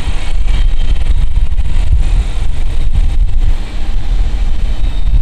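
Work train rolling away down the track: a steady, loud low rumble from the receding cars and wheels.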